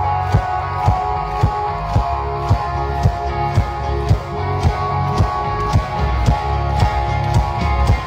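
A live band playing pop-rock music, with guitar and a strong bass and a steady beat of a little under two strokes a second. The crowd is clapping along in time.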